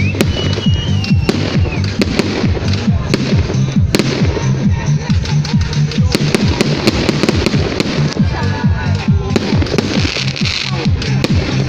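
Fireworks display: many rapid bangs and crackles of bursting fireworks, with music playing underneath.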